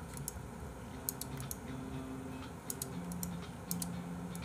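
Computer keyboard being typed on, sharp key clicks coming in short scattered bursts.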